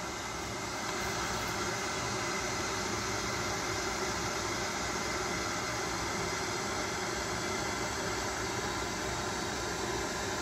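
Steady room background noise: an even hiss over a low rumble, unchanging, with no distinct events.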